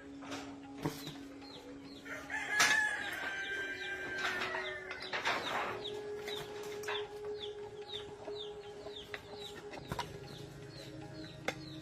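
A bird call: one loud drawn-out call about two seconds in, lasting about two seconds, then short falling chirps repeating about twice a second. A few sharp knocks and a faint steady hum lie underneath.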